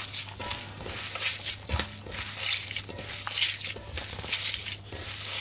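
Bare hands kneading raw gyoza filling of ground meat and chopped cabbage in a stainless steel bowl: wet squishing in an uneven rhythm, about two squelches a second.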